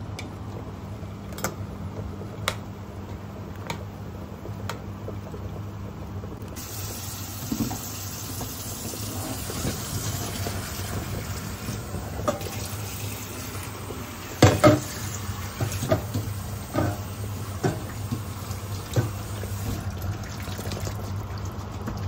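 Water pours and runs into a stainless steel kitchen sink as blanched shredded cabbage and carrots are drained through a colander and cooled under the water. The water starts about six and a half seconds in and runs steadily, with several metal clanks of pot and colander against the sink, the loudest about halfway through. Before the water there is a steady low hum with a few light clicks.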